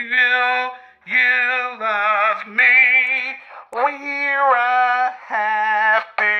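A woman singing through a handheld bullhorn: held notes with a wavering vibrato, in short phrases broken by brief pauses.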